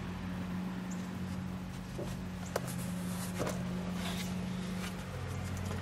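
Pages of a glossy paper brochure being handled and turned, with a few short papery rustles and taps about two to four seconds in, over a steady low hum.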